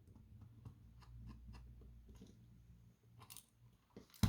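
Faint small metallic clicks and scrapes of a hand tool working a nut on a mechanical alarm clock's movement, with one sharper click near the end.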